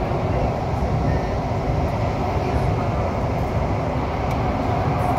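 CT251 metro train running at speed through a tunnel, heard from inside the leading car: a steady rumble of wheels on rail and running gear that holds even throughout.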